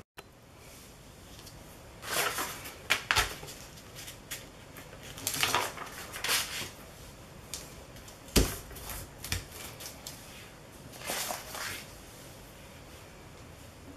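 Scattered handling sounds of paper and a round plastic mesh printing tool being lifted, moved and set down on a gel plate, in short rustling bursts, with one sharp knock about eight seconds in.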